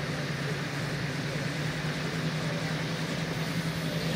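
Diesel pulling-tractor engine idling steadily at one even pitch.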